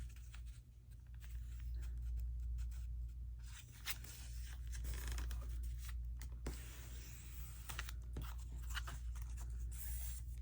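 Paper being handled on a craft table: irregular rustling, scraping and tearing of paper, with a steady low hum underneath.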